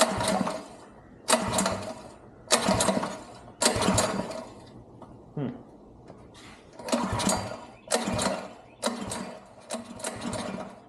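A 212cc single-cylinder go-kart engine being pull-started with its recoil starter. There are about eight sharp pulls, roughly one a second, with a pause of a couple of seconds in the middle. The engine turns over on each pull but does not catch and run.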